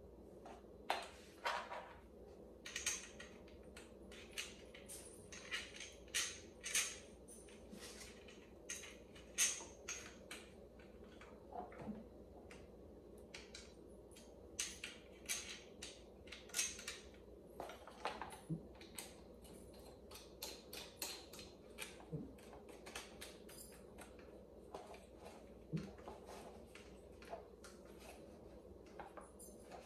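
Irregular light clicks, taps and clinks of metal mower handle tubes and small plastic fittings being handled and fitted together during assembly, some with a short metallic ring.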